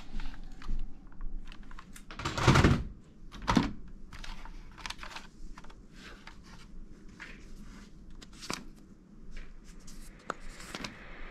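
Plastic toy guns being handled and shifted about in a cardboard box: rattling and rustling with scattered clicks, the loudest clatter about two and a half seconds in.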